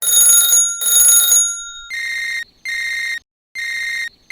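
Two short bursts of noise with a bright, steady ringing tone, followed by a repeated electronic beep: about four identical beeps, each roughly half a second long, evenly spaced.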